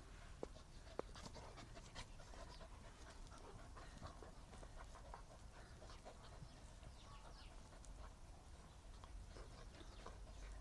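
Two dogs panting faintly while they play-wrestle, with soft scuffling and two sharp clicks in the first second.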